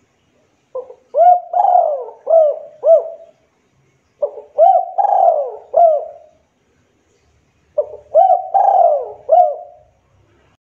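Spotted dove (local Javanese derkuku) cooing: three phrases a couple of seconds apart, each a run of four or five short notes.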